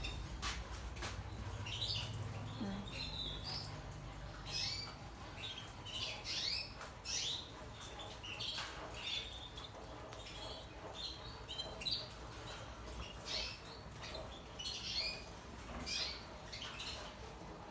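Caged canaries giving short chirps and calls, scattered irregularly and overlapping, with a few faint clicks between them.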